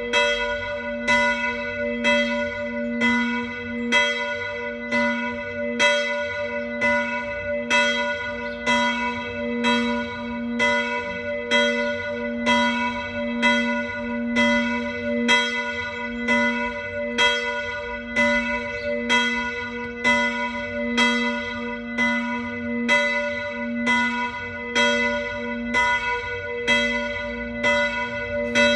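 Church bell ringing, its clapper striking evenly about four times every three seconds. Each stroke sounds the same note, and a low hum rings on between strokes.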